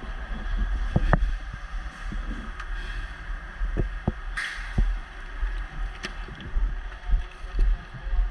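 Low rumbling thumps of movement against the microphone, with scattered sharp clicks and knocks and one short hiss about four seconds in.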